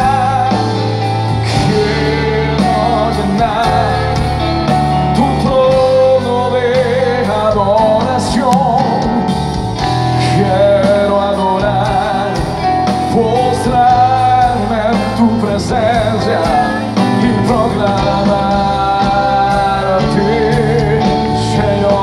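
A live band plays a Christian gospel worship song: drums, electric guitar, bass and keyboards under a man's lead vocal, sung with a wavering vibrato and held notes.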